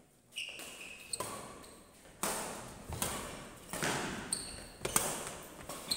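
Badminton rally: rackets striking the shuttlecock about once a second, each hit sharp and echoing in the hall, with brief high squeaks of shoes on the court between hits.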